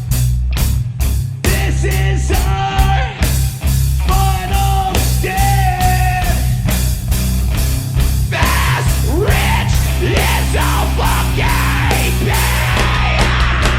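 Metal band playing live: a heavy, loud rock song over a steady drumbeat and thick low end. Held melodic notes carry the first half; from about halfway a denser wash of sound comes in, with pitches bending up and down.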